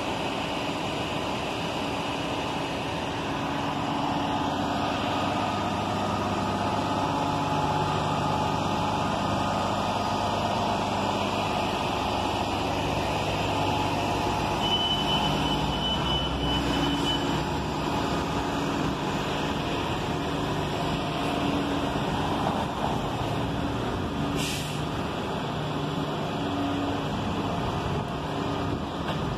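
City transit bus engines running as the buses drive off along the street, a steady low hum. A thin high tone sounds for about two seconds around the middle, and a short air-brake hiss comes late on.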